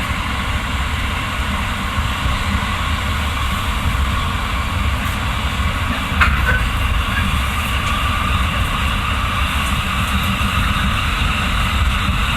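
Running noise of a commuter electric train heard from inside an unpowered cab car: a steady rumble of wheels on rails, with one brief sharp sound about six seconds in.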